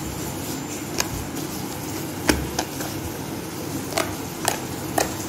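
Clay-mixed bubble slime being squished and folded by hand, with about six sharp pops as air pockets in it burst, over a steady background hiss.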